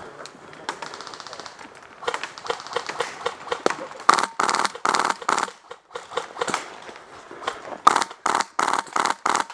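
Airsoft rifle firing quick strings of sharp shots, about four a second: one string about four seconds in and another near the end. Fainter pops of other airsoft guns come before them.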